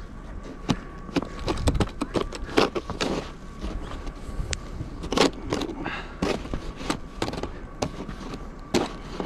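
Snow-clearing tool, most likely a snow shovel, scraping and knocking against snow and pavement in an irregular run of sharp scrapes and knocks.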